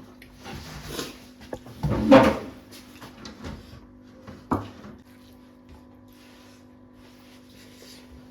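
Close-miked eating noises during a mukbang of goat curry and rice: bursts of chewing and mouth sounds, the loudest about two seconds in, and a sharp click about four and a half seconds in, like a dish or utensil being knocked. A faint steady hum runs underneath.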